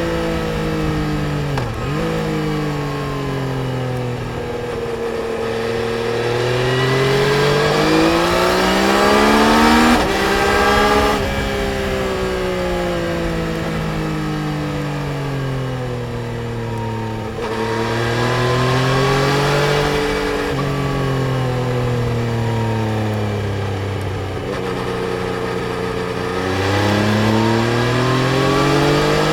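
Yamaha Tracer 900 GT's three-cylinder engine under way, its pitch climbing as it accelerates and sinking as the throttle rolls off, in repeated swells. There are sharp drops in pitch at gear changes, the clearest about eleven seconds in, and it is loudest just before that.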